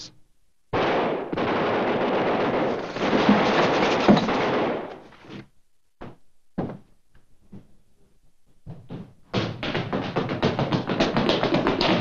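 A loud burst of dramatic TV score music cuts in about a second in and fades out after about four seconds. Scattered knocks follow, and from about nine seconds there is a rapid clatter of thuds and taps.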